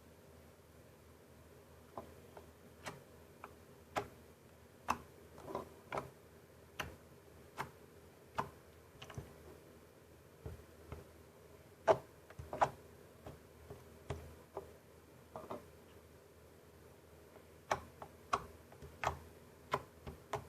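Slime being poked and squeezed by hand, giving irregular sharp clicks and pops, about one to two a second, with a short pause late on.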